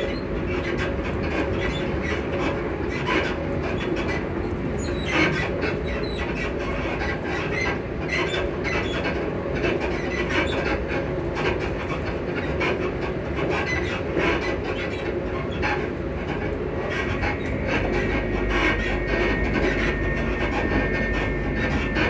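Class 334 electric multiple unit running at speed, heard from inside the carriage: a steady rumble of wheels on rail with frequent clicks over the track, under a steady motor hum. A thin high whine comes in about 18 seconds in.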